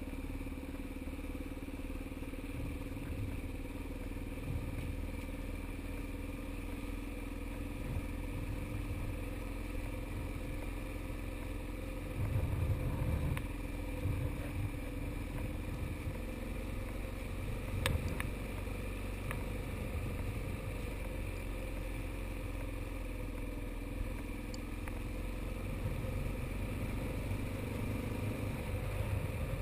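Motorcycle engine running steadily at low speed, heard from a camera mounted on the bike, with low wind rumble on the microphone that gusts louder about halfway through and a sharp click about two-thirds of the way in.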